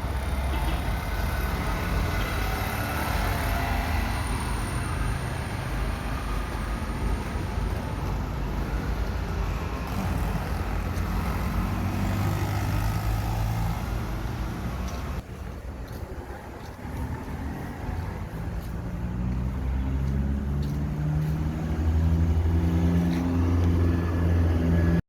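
Street traffic with passing motor vehicles. The level drops sharply about fifteen seconds in, then a nearby vehicle engine grows louder near the end.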